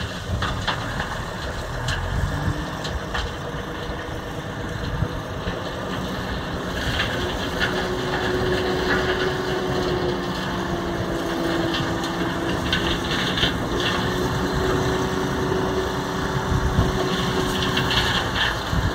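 A Mercedes tipper truck's diesel engine runs steadily while the hydraulic tipping ram raises the loaded body. A steady whine comes in about seven seconds in and holds until near the end, and the sound grows slightly louder as the body lifts.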